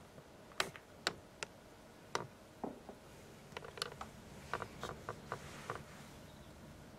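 A few sharp light clicks, then a quicker run of small clicks and taps from about three and a half to six seconds in.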